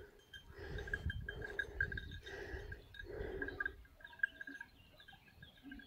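Animal calls, four in a row in the first four seconds, each about half a second long, over a thin high flickering tone that runs throughout.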